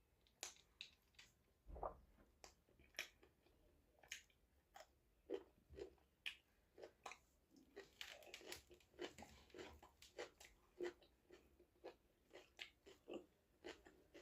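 A person quietly chewing and crunching food, with irregular short crunches and mouth clicks about two or three a second.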